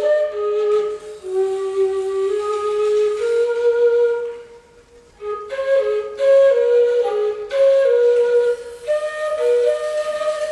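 A wind instrument, flute-like in tone, playing a melody of held and stepping notes, breaking off for about a second near the middle before the melody resumes.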